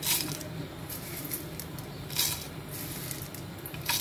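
Three sharp clicks and clinks of a steel mixer-grinder jar and its lid being handled, one at the start, one about two seconds in and one near the end, over a faint steady low hum.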